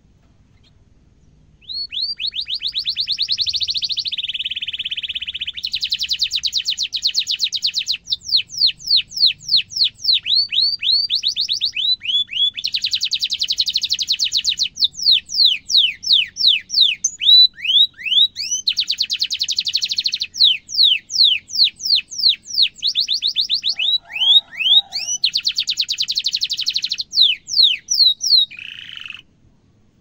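Domestic canary singing a long song: stretches of very fast rolling trills alternate with runs of slower, separate falling notes. The song starts about two seconds in and stops shortly before the end.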